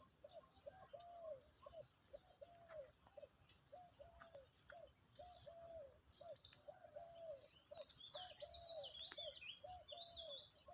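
A bird repeating a short, low hooting note about twice a second, steadily. About eight seconds in, another bird's high, rapid twittering song joins for a couple of seconds.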